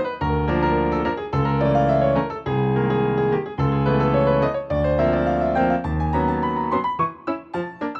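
Piano music soundtrack: sustained chords changing about once a second, turning to short, quick detached notes near the end.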